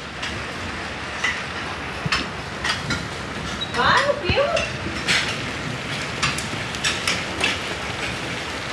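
Hail and heavy rain pelting down: a steady hiss broken by many sharp ticks of hailstones striking hard surfaces.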